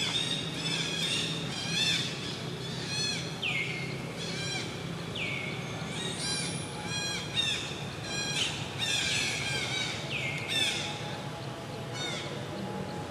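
Birds calling repeatedly: short whistles that sweep down in pitch and level off, coming every one to two seconds, mixed with chirps and squawks, over a faint steady low hum.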